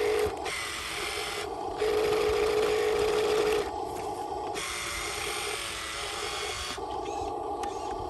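Huina radio-controlled dump truck's electric drive motor and gearbox whining as it drives over sand. The whine steps louder briefly at the start and again from about two to three and a half seconds in.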